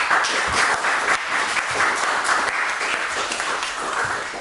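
Audience applauding, a burst of clapping that dies away near the end.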